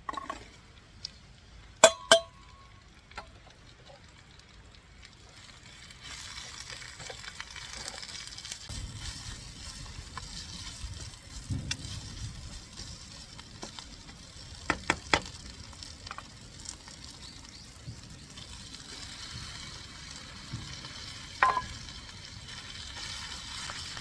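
Food sizzling in a pan, a steady crackly hiss that starts about six seconds in. Sharp metal clinks of utensils against cookware come twice near the start and again later on.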